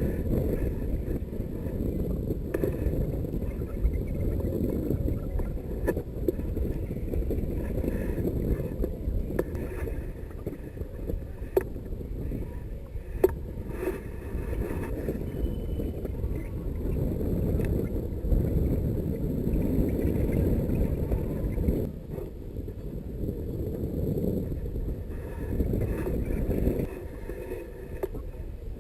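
Wind rushing over the microphone in flight, a steady low rumble with a few faint clicks.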